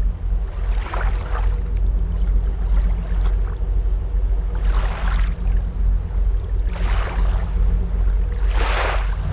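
Boat wake churning and splashing, with surges of spray every couple of seconds over the steady low rumble of the boat's motor.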